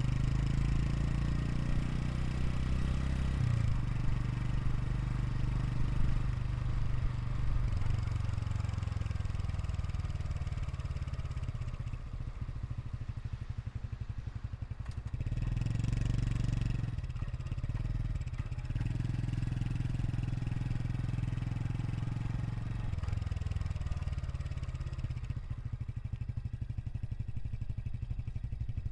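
Honda Super Cub 110 Pro's air-cooled single-cylinder engine running through its exhaust at a steady low speed, with a brief rise in revs about halfway through.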